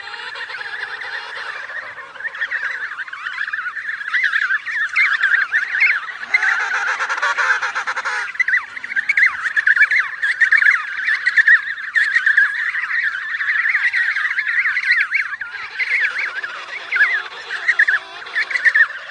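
A penguin colony calling: many birds honking and squawking at once in a dense, unbroken chorus.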